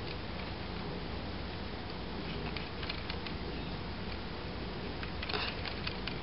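Steady background hiss with a few faint light taps, and a brief scratch a little after five seconds, as a fine paintbrush dabs weathering paint onto a plastic HO-scale container car.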